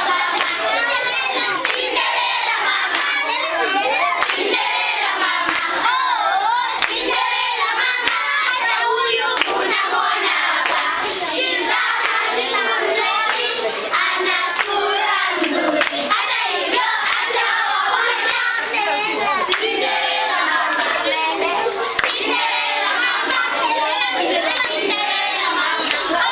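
A class of schoolchildren singing a song together while clapping their hands.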